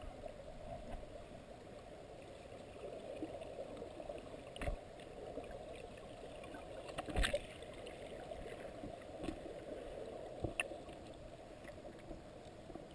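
Faint, muffled underwater ambience picked up by a submerged camera: a steady low rushing hiss, broken by three sharp clicks or knocks spread through it.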